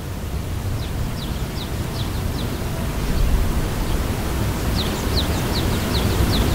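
Wind buffeting the microphone with a steady low rumble, while a small bird calls in runs of short, high, falling chirps, several a second, about a second in and again near the end.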